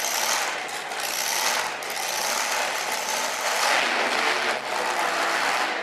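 Supercharged engine of a pulling truck idling, a dense mechanical clatter before the pull starts.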